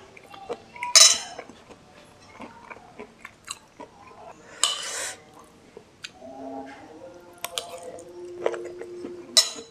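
Close-miked chewing and biting of fried noodles and crispy fried tofu (tahu walik), with many small wet mouth clicks. A few louder, sharp noisy bursts come about a second in, around five seconds and near the end.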